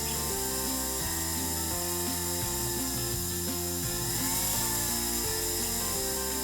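Motor-driven pumice wheel spinning and grinding against a cast metal piece, a steady whirring rub with a brief rise and fall in pitch about four seconds in. Background music plays underneath.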